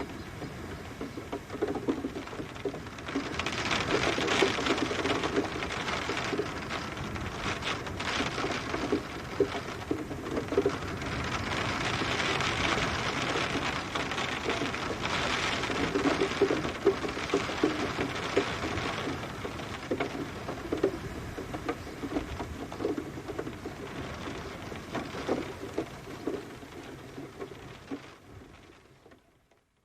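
Steady rain with many drops pattering and tapping on a hard surface, swelling heavier twice, then fading out near the end.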